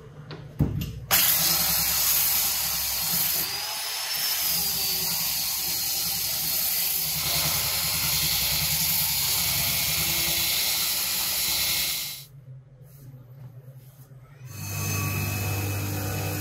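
DeFort belt sander running against the metal body of an old rusty iron, a loud steady rasping hiss that starts about a second in and cuts off after about eleven seconds. Near the end an electric bench motor spinning a brush wheel starts up, a steady low hum.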